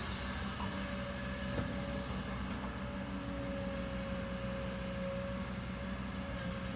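Kobelco hydraulic excavator's diesel engine running steadily under work, with a steady whine over the engine drone and a faint knock about a second and a half in.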